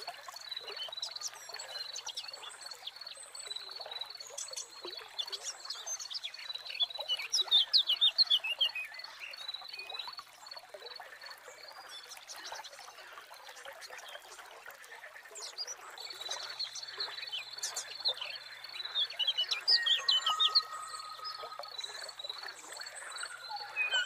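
Nature soundscape: birds chirping in two quick flurries, over a steady high pulsing trill and the hiss of trickling water. The trill drops out for a few seconds in the middle.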